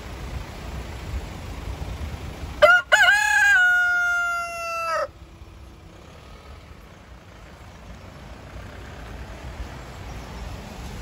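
Cockerel crowing once, about two and a half seconds in: a short broken start, then a long held note that sags slightly and cuts off sharply.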